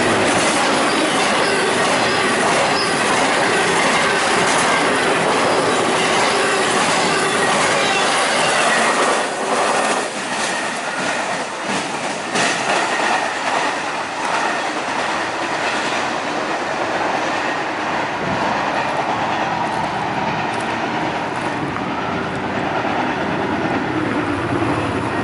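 Double-stack intermodal train's loaded well cars rolling past on steel rails. The noise drops about nine seconds in as the last car goes by, and the train's running noise carries on, fading somewhat, as it moves off down the line.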